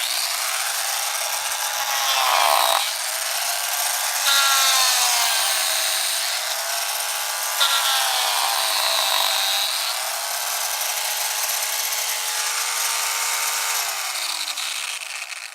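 An electric power tool's motor running with a loud whine over a rushing hiss. Its pitch sags and recovers about three times, as when the tool is pressed into work, and near the end it slides down as the motor spins to a stop.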